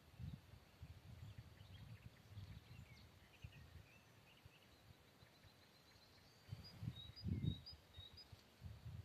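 Wind buffeting the microphone in low gusts, strongest about seven seconds in, with faint bird chirps and twitters over it.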